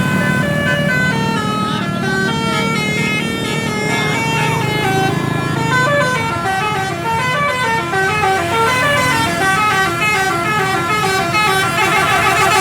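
Bus 'telolet basuri' musical horn playing a tune: a quick run of steady horn notes stepping up and down in pitch, over the bus's engine. Near the end the notes thicken into a fuller, denser chord.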